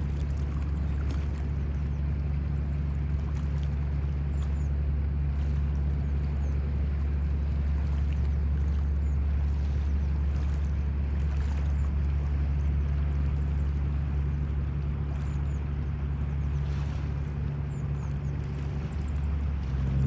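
Steady low motor drone, like an engine running unseen, with faint short high bird chirps now and then.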